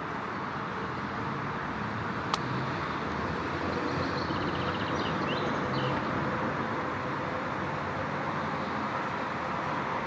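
Steady distant road-traffic hum, with faint high bird chirps a little before halfway and a single sharp click about two seconds in.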